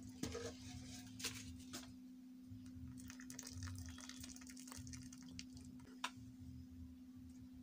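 Hot milk tea poured through a plastic strainer into a jug, trickling and dripping faintly, with a few light clicks and knocks of the vessels, the sharpest about six seconds in.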